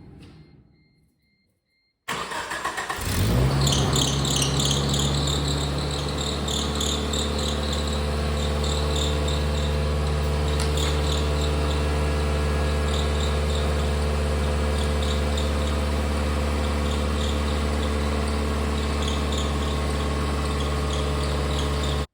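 1997 Geo Tracker's four-cylinder engine starts about two seconds in and settles into a steady run, with a high-pitched squeal that comes and goes over it. The squeal is from the failing alternator bearing: the alternator is seizing as it warms and its pulley gets super hot.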